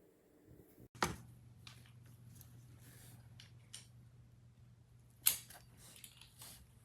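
Two sharp clicks about four seconds apart, with lighter ticks and taps between them and a faint steady hum starting at the first click: tools and parts being handled.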